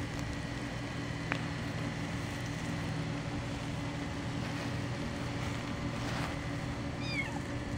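A steady low mechanical hum, with a five-week-old kitten giving one short, high, falling meow near the end.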